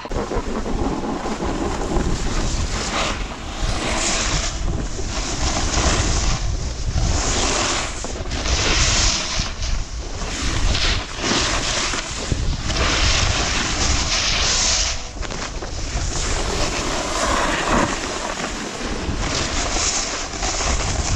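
Wind rushing over the microphone of a camera carried by a moving snowboarder, a loud low rumble, with the snowboard's edges scraping and hissing over packed, groomed snow in repeated surges as it carves turns.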